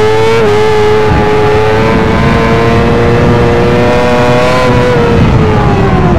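Yamaha R6 inline-four sportbike engine running hard at high revs on track. The pitch steps down briefly just after the start, climbs slowly for about four seconds, then falls over the last second as the throttle comes off.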